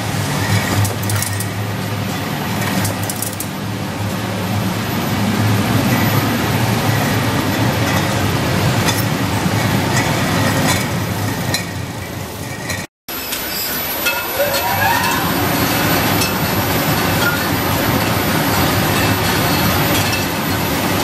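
Bottle-packaging line machinery running: a steady mechanical hum with clatter and clinks. A sudden brief break in the sound comes about two-thirds of the way through, then the clattering goes on as glass bottles move along a conveyor.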